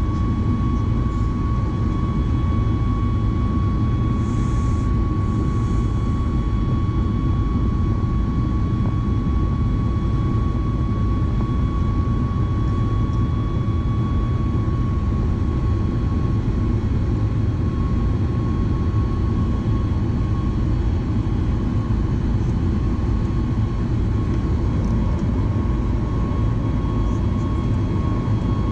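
Steady in-flight cabin noise of a Boeing 737 MAX 8: a dense low rumble of airflow and its CFM LEAP-1B engines, with a steady high tone that wavers slightly in pitch.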